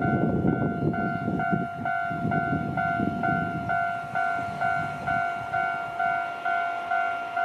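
Japanese level-crossing warning bell ringing: one pitched ding repeated steadily about twice a second. A low rumble is heard under it for the first few seconds and fades out.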